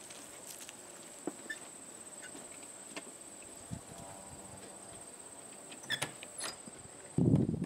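Faint clicks and rattles of a loaded child's wagon being pulled over grass, then about seven seconds in a loud, low scraping rumble as a wooden barn door is pulled open.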